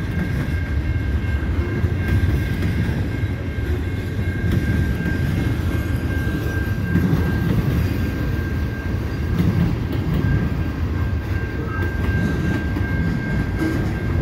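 Freight cars of a CN double-stack freight train rolling past at close range, a steady low rumble of wheels on rail, with a faint steady high tone above it.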